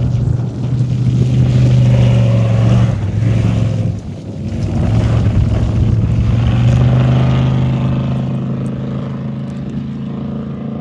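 Off-road race vehicle's engine running hard at steady high revs. It swells twice, with a brief dip about four seconds in.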